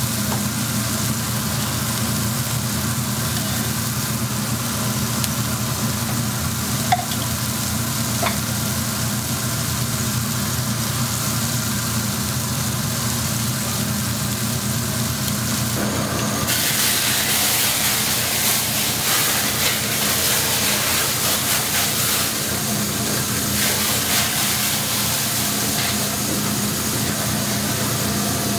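Beef patties and shrimp sizzling on a hot flat-top griddle over a steady low hum. Two light clicks come about a third of the way in, and the sizzling grows louder a little past halfway.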